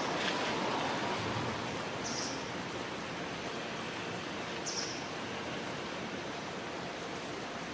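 Steady hiss of falling rain, with a short high chirp heard twice, about two and four and a half seconds in.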